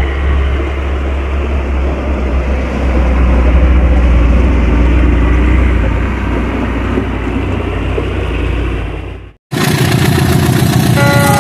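Diesel dump truck's engine running with a low, steady note as the truck drives slowly past over gravel, loudest in the middle as it comes closest. It cuts off suddenly near the end and theme music starts.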